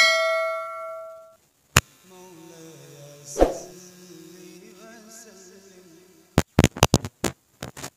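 A man's voice singing a naat melody faintly through a public-address system, held wavering notes. It opens on a ringing note that fades out over the first second and a half. Sharp clicks with brief dropouts cut in about two seconds in, a louder one near the middle, and a rapid cluster in the last second and a half.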